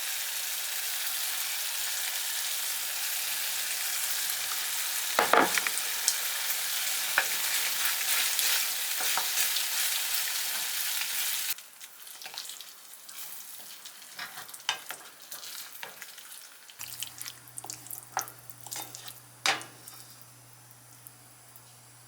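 Keema curry sizzling in a frying pan while it is stirred, with a few louder scrapes; the sizzle cuts off suddenly about halfway. Then come quieter scattered clinks and taps, and a low steady hum starts about three-quarters of the way in.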